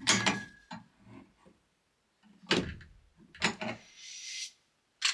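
A few separate heavy knocks and thuds of wooden boards and posts being handled and set in place, with a short scraping hiss about four seconds in.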